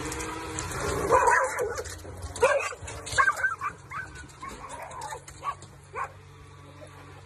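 Dogs barking and yipping excitedly in short pitched calls, thinning out after about six seconds, over a steady low hum.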